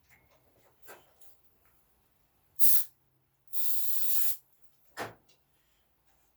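Two bursts from an aerosol starting spray can, a short one and then a longer one of nearly a second, priming an old Poulan chainsaw so that it will start. A single knock follows.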